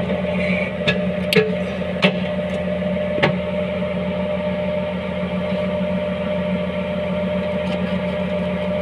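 A steady mechanical hum with a few sharp metal clicks in the first few seconds.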